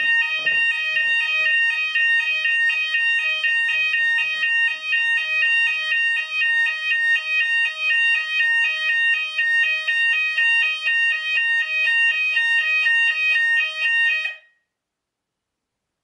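Sounders of a Hochiki addressable fire alarm system sounding a fast alternating two-tone alarm, set off by a smoke detector under smoke test. It cuts off suddenly near the end.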